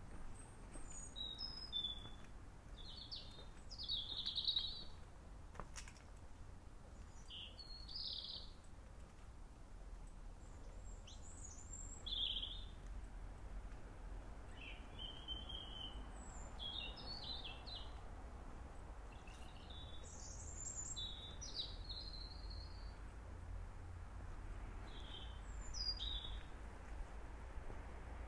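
A small songbird singing short, high, varied phrases with pauses of a second or two between them, over a low steady rumble.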